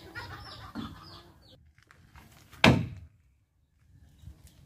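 A hammer strikes a chisel once, about two and a half seconds in, a sharp knock as the chisel cuts a hole into a wooden beam. Small birds chirp during the first second and a half.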